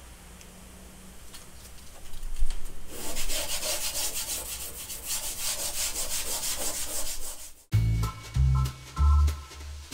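Hand sanding with 220-grit sandpaper on the primed plywood hull of a boat: quick back-and-forth rasping strokes, starting about two seconds in and stopping abruptly near the end. Background music with a bass beat takes over for the last two seconds.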